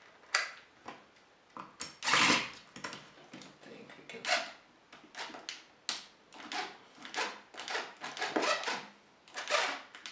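Small handheld electric screwdriver run in short, repeated bursts to back screws out of a loudspeaker's plastic chassis, mixed with sharp clicks and rattles of the parts being handled.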